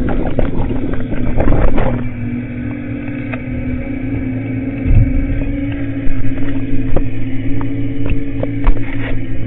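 Caterpillar excavator running: a steady droning engine hum, with sharp knocks and clanks scattered through it, clustered in the first couple of seconds.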